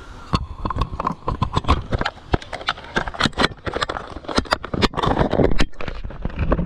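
Close handling noise on a GoPro action camera: a rapid, irregular run of knocks, clicks and scrapes as the camera is gripped, moved and tapped against gear. The knocks come thickest and loudest about five seconds in and stop abruptly near the end.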